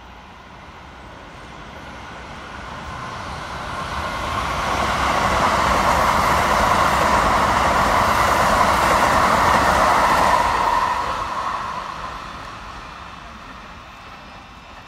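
Keikyu 1000-series electric train passing close by, its running noise swelling over about five seconds, staying loud for about five more, then fading away.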